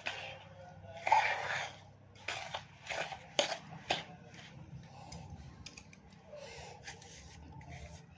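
Roasted gram flour and powdered sugar being stirred together in a vessel: irregular scratchy bursts with a few sharp clicks, loudest about a second in.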